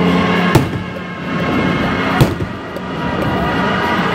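Aerial fireworks display: two sharp bangs of bursting shells, about half a second and two seconds in, over a steady din from the show.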